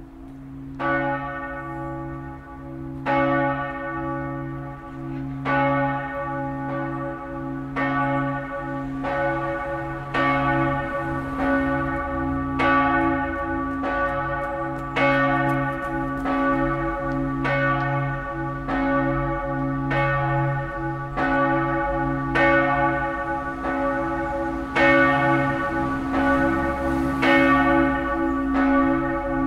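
Several bronze church bells of a five-bell peal (strike tones D♭, E♭, G♭, A♭ and B♭) ringing together, with their low hum notes sounding on under the strikes. The strikes come every couple of seconds for the first ten seconds or so, then close up to about one a second.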